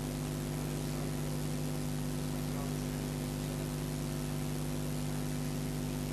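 Steady electrical hum with an even hiss over it: the recording's background noise in a pause with no speech.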